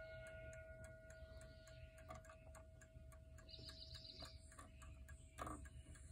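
Quick, even ticking from a Gustav Becker 'Mignon' miniature pendulum clock movement. The high, bell-like notes of its short chime rods linger from the last chime and fade away about five seconds in. A single knock follows as the hands are turned by hand.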